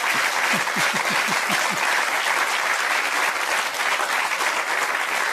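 Studio audience applauding steadily, with a few short voices from the crowd in the first two seconds.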